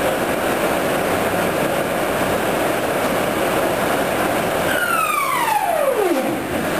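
O-M vertical boring mill running with its table spinning, a steady mechanical noise. About five seconds in the table drive is stopped and a whine falls steeply in pitch as the table spins down; the machine's running noise carries on after it.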